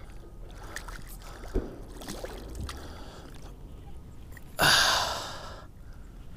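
A person's loud sigh, a rush of breath close to the microphone lasting about a second, starting about four and a half seconds in, with a faint handling knock earlier.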